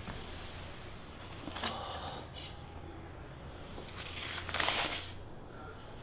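Sheets of paper rustling and being handled in a few short bursts, the loudest about four and a half seconds in, over a steady low room hum.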